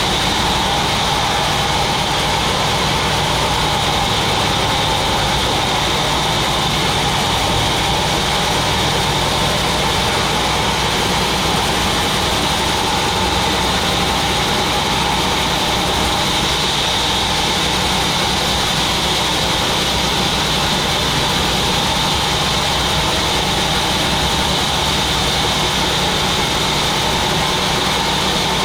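Sawmill machinery running steadily: a continuous machine noise with a steady high whine and a low hum, unchanging throughout.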